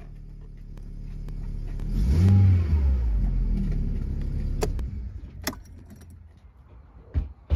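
Peugeot 406 petrol engine idling, heard from inside the car, given a brief blip of the throttle about two seconds in, then switched off and falling silent, with sharp clicks from the ignition key. A couple of knocks near the end.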